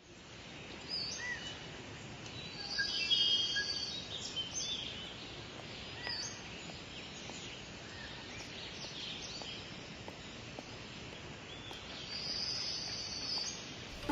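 Outdoor ambience of birds chirping and singing over a steady background hiss, with short calls every second or two and busier trilling about three seconds in and again near the end.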